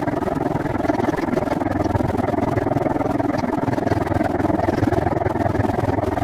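Steady rush of wind on the microphone and rolling rumble of a bicycle moving along a paved trail, with faint light clicks and rattles.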